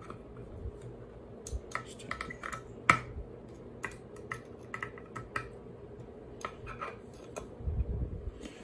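Irregular light clicks and taps of hands working the small metal parts of a telescope filter wheel and off-axis guider assembly, with one sharper click about three seconds in.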